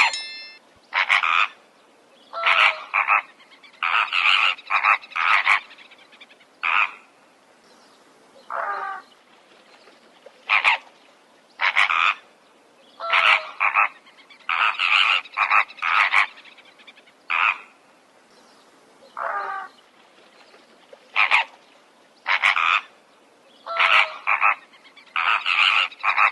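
Short animal calls repeated over and over, some single and some in quick runs of two or three, with brief pauses between them.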